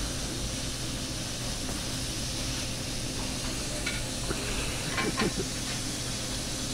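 Steady hiss and sizzle of food frying on a diner's flat-top griddle, over the steady hum of the kitchen's exhaust hood. A few short clicks and clatters come about four and five seconds in.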